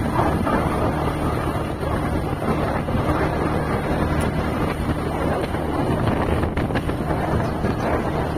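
Steady drone of a vehicle cruising along a road, with wind rushing over the microphone.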